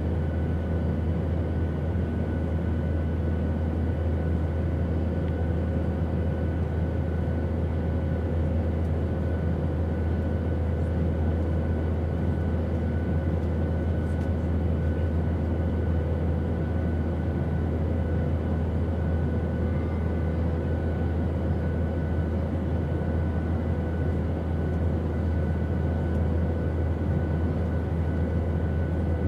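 Steady airplane drone: an even low rumble of engine and airflow noise with faint steady whining tones over it, unchanging throughout.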